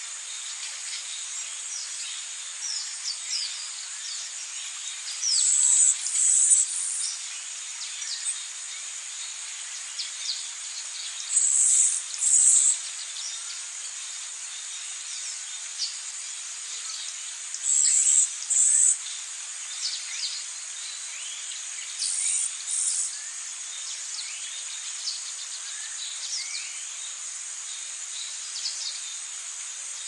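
Insects trilling steadily, with a louder two-part buzz that comes back about every six seconds, while small birds chirp now and then.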